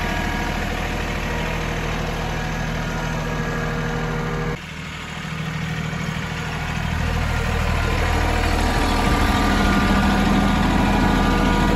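Small tractor engine running steadily. The sound drops suddenly about four and a half seconds in, then the engine gets gradually louder over the following seconds.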